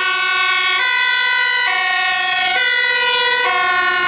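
Dutch fire engine's two-tone siren, switching back and forth between a higher and a lower note a little under once a second.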